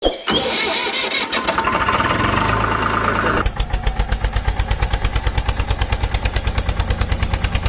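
A small engine starts up with a rough burst and settles into a steady, rapid, even chugging idle about three and a half seconds in.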